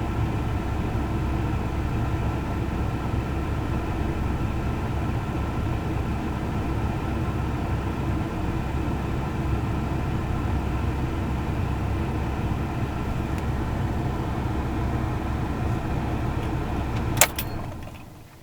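Chevy Colorado pickup engine idling roughly, a steady uneven running with a low rumble. Near the end a sharp click, and the engine sound dies away.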